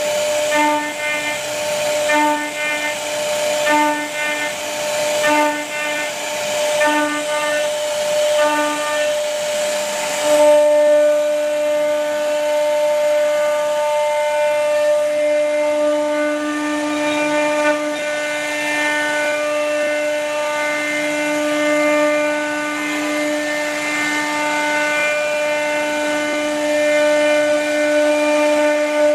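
CNC router spindle carving a wooden door panel: a steady whine as the bit cuts, pulsing about every three-quarters of a second for the first ten seconds, then running steadier.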